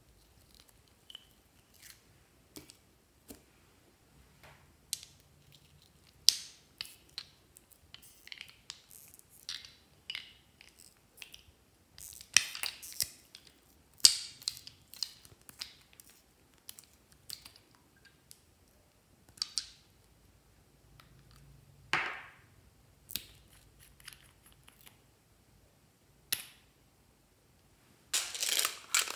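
Hands handling small plastic slime containers over a glass dish: scattered clicks, taps and short scraping and rustling sounds as the containers are opened and emptied, busiest around the middle, with a dense stretch of handling noise starting near the end.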